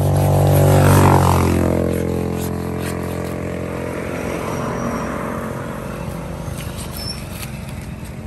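A motor vehicle's engine passes close by, loudest about a second in and then fading away.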